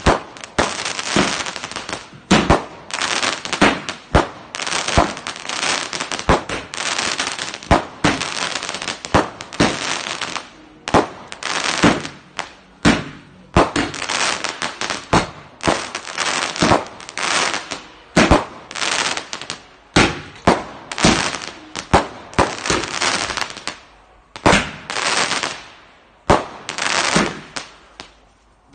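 A 110-shot Astra Air Collision firework barrage cake firing, one shot after another at roughly one to two a second, each launching and bursting overhead, with a steady hiss and crackle between the shots. The firing thins out with short lulls near the end.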